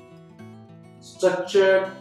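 Acoustic guitar background music with held, strummed notes. Two short, much louder sounds, each with a hiss on top, come one after the other over the last second.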